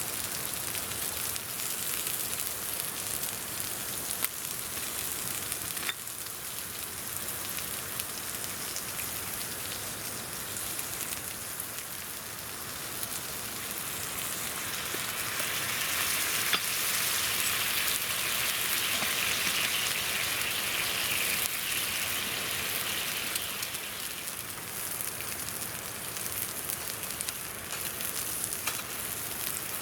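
Steady rushing hiss of a river with the odd sharp crackle from a campfire. About halfway through, a louder sizzle of beef grilling over the fire swells for several seconds, then eases back.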